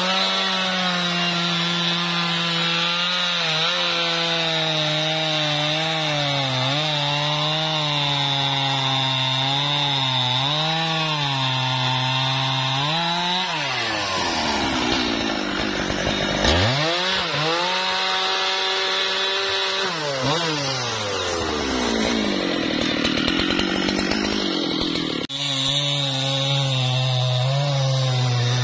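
Husqvarna 395 XP chainsaw, a big two-stroke saw, running at full throttle and cutting into wood, its pitch dipping and recovering as the chain takes the load. About halfway it falls off sharply to low revs, revs back up, drops again a few seconds later, then goes back to full throttle about three seconds before the end.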